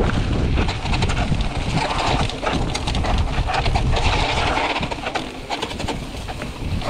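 Mountain bike being ridden with wind buffeting the microphone, a heavy steady rumble with frequent small rattling clicks from the bike over the ground.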